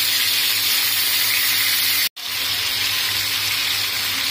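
Marinated chicken pieces sizzling in hot oil in a shallow frying pan, a steady hiss that breaks off for an instant about halfway: the oil is hot enough for the chicken to sear.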